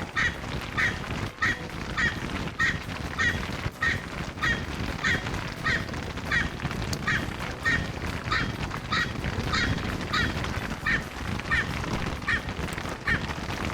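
Erckel's francolin calling loudly and without pause: a steady series of short, harsh, repeated calls, a little under two a second. The bird is "yelling" in alarm after a missed bow shot.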